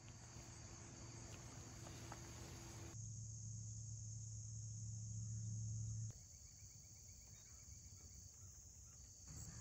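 Crickets trilling steadily and faintly over a low steady hum. The background changes abruptly about three and six seconds in.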